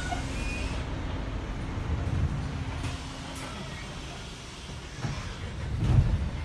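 Wright StreetLite bus's Daimler OM934 four-cylinder diesel idling, heard from inside the saloon while stationary, as a steady low rumble. A louder low thump comes a little before the end.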